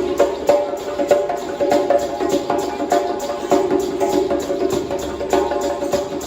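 Drums played in a fast, busy rhythm: a steady stream of sharp strokes, several a second, over a ringing, pitched resonance.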